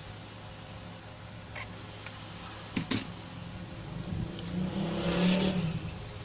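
Handling noise from rewinding a blender armature with copper wire: two sharp clicks close together about three seconds in, then a short scraping rustle that swells and fades near the end, over a steady low hum.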